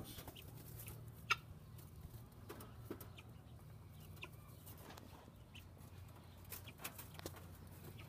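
Chickens clucking faintly in a few short, scattered calls, with one louder, sharper call about a second in.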